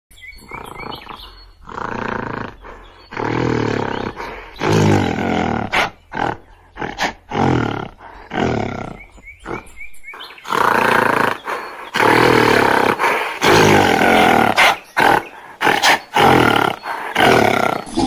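Gorilla roaring: a series of loud calls, each a second or two long, separate at first and running almost without a break from about ten seconds in.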